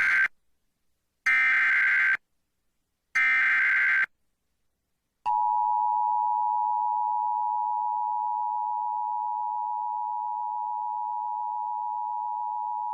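Emergency Alert System activation: the tail of one SAME header data burst and two more full bursts, buzzy and about a second each, then after a short gap the EAS two-tone attention signal (853 and 960 Hz together), a steady tone for about eight seconds that grows slightly quieter.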